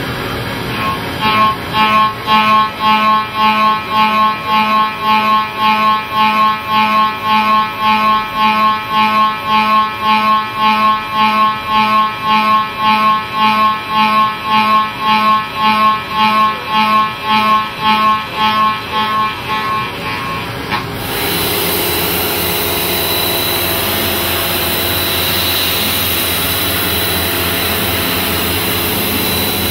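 Milling cutter cutting steel in a vertical mill: a pitched machining sound that pulses about twice a second. About two-thirds of the way through, it abruptly gives way to a steady, even noise with a thin high whine.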